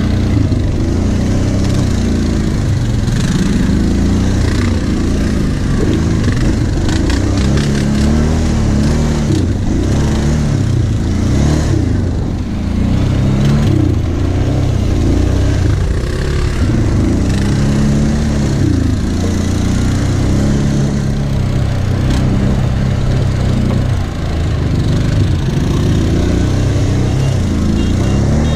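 Kawasaki KVF 750 Brute Force quad's V-twin engine running under load, its pitch rising and falling again and again as the throttle is opened and eased. A few sharp knocks come about a third of the way in.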